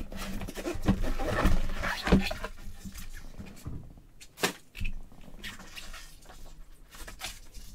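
Cardboard box being handled and opened by gloved hands: rustling and sliding in the first couple of seconds, then quieter handling with a few sharp clicks and taps about four and a half seconds in.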